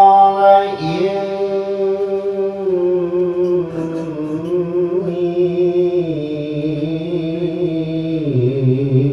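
A man reciting the Quran in melodic tilawah style, drawing out long held notes. There is a short break about a second in, and the melody steps down in pitch around six seconds and again near the end.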